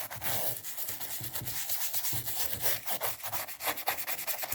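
Toothbrush bristles scrubbing a plastic remote-control casing wet with window cleaner, in quick back-and-forth strokes, several a second.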